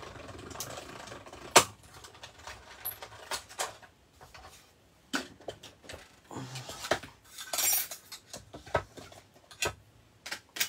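A string of sharp clicks and knocks from a hand-held paper punch and other craft tools being handled on a wooden tabletop. The loudest click comes about one and a half seconds in, and there is a brief scrape a little before eight seconds.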